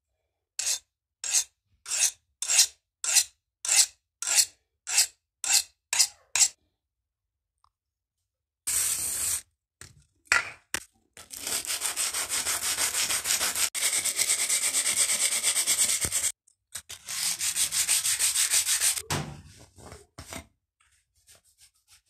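Hand sanding a knife part on sandpaper. First comes a run of about eleven slow, even strokes, roughly one every 0.6 s. After a short pause comes fast, continuous back-and-forth rubbing for about five seconds, which breaks off and resumes for another two seconds before fading.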